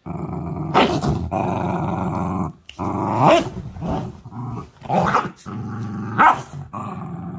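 Small dog play-growling continuously while biting and shaking a plush toy, with four short, louder snarls breaking through and a brief pause about two and a half seconds in.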